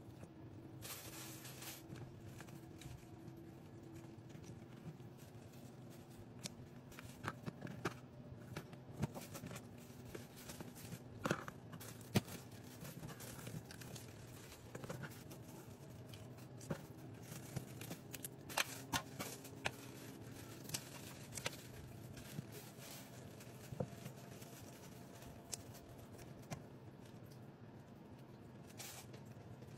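Kitchen scissors and a knife cutting raw chicken in a stainless-steel sink: scattered sharp snips and clicks of the blades and of metal on the steel, with the wet tearing of skin and meat pulled apart by hand. A steady low hum runs underneath.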